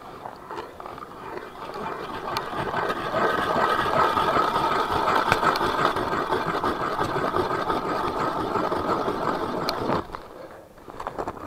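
Ice auger drilling a hole through river ice: a steady grinding scrape that builds over the first few seconds, holds for several seconds and stops abruptly near the end.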